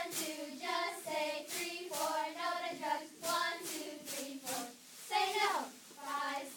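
A children's spirit squad chanting a cheer in unison in short rhythmic phrases, punctuated by sharp hand claps.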